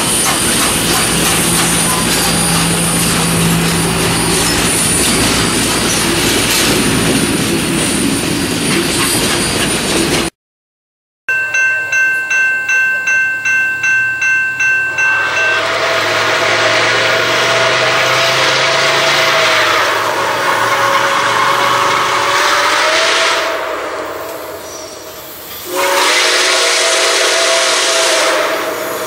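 Nickel Plate Road 765, a 2-8-4 Berkshire steam locomotive, rolling past with a steady rumble of running gear and wheels. After a brief break, a bell rings quickly for a few seconds, followed by long blasts of the locomotive's steam whistle as it approaches. The whistle fades out briefly and sounds again near the end.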